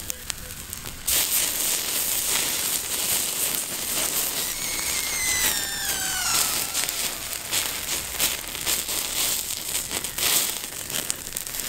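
An open wood fire crackling and popping, with fat dripping from the roasting bird into the flames. About halfway through, a thin whistle falls in pitch for about two seconds.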